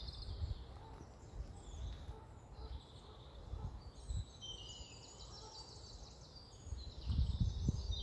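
Small woodland birds singing, with many quick high chirps and trills throughout. Under them runs a low rumble that grows stronger near the end.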